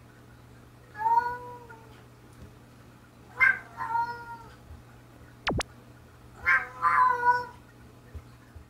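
Cats trading drawn-out meows in three spells, the pitch of each meow bending up and down, as in a chatty quarrel between them. A brief sharp sweeping tone cuts in once near the middle.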